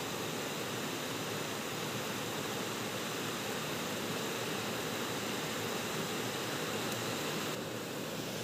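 Steady rush of flowing river water, an even hiss with no distinct events.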